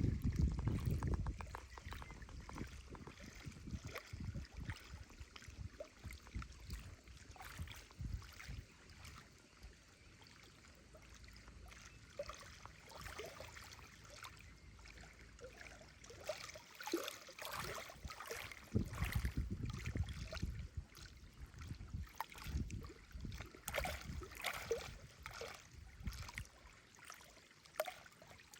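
Small reservoir waves lapping and splashing irregularly at the water's edge, with a low wind rumble on the microphone in the first second or so.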